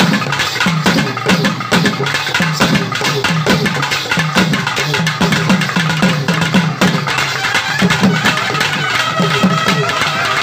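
Naiyandi melam drumming: thavil barrel drums beaten with sticks in a fast, dense rhythm of low thuds and sharp strikes. A steady higher pipe note comes in near the end.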